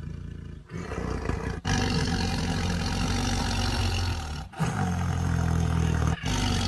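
Big cat growling and roaring in long, rough, deep calls, starting quieter and rising to full loudness after about a second, with brief breaks between calls near the middle and near the end.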